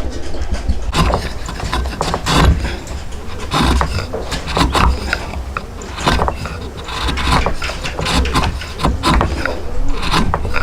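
Tools working wood by hand: irregular scraping and rubbing strokes with sharp knocks among them, over a low rumble.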